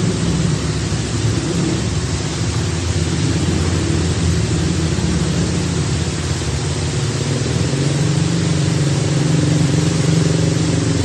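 ATV engine running steadily while under way, its pitch shifting slightly up and down, over a constant hiss.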